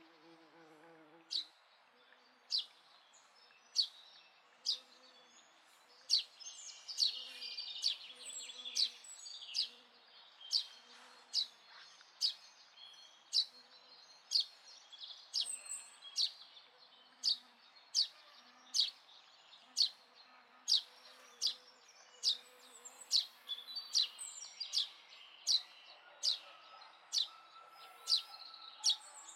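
A bird repeating a short, sharp, high call note about every two-thirds of a second, with other birds twittering behind it, busiest around seven to nine seconds in.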